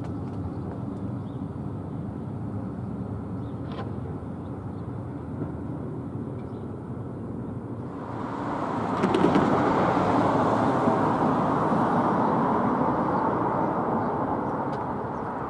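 Road traffic rumbling. About eight seconds in a vehicle passes close by, louder for several seconds, then slowly fades.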